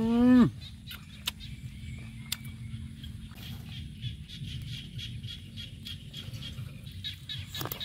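A man's loud closed-mouth "mmm" with his mouth full of food, rising and then dropping sharply in pitch, over in about half a second. After it come quieter sounds with a couple of small sharp clicks.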